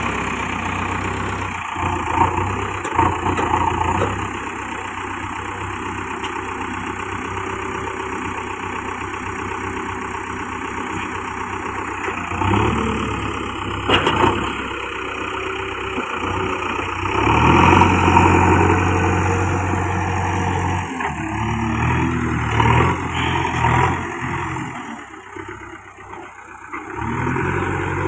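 JCB 3DX backhoe loader's diesel engine running at a steady idle, then revving up under load about twelve seconds in and again for a few seconds in the second half. A sharp click about fourteen seconds in.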